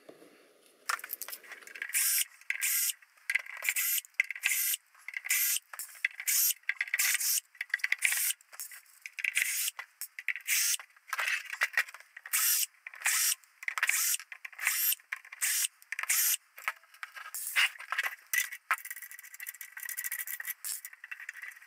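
A hand tool turning screws out of the Presonus Firepod's metal case, heard as a run of short scraping strokes, about one or two a second.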